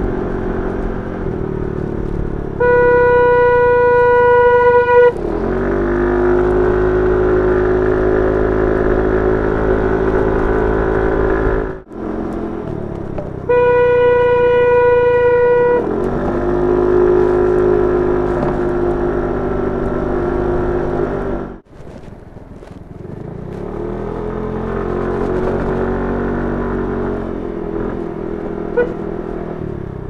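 Stebel TM80 Magnum compressor air horn sounding two long single-tone blasts of about two and a half seconds each, a few seconds in and again about halfway through. Between the blasts the Suzuki Address 110 scooter's engine accelerates, its pitch rising, several times.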